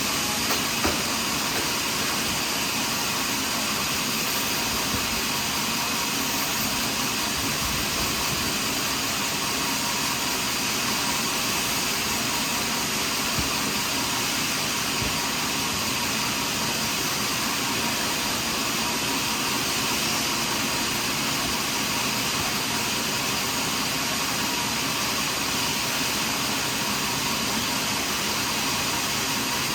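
Sawmill machinery running, a steady mechanical whir that holds level throughout.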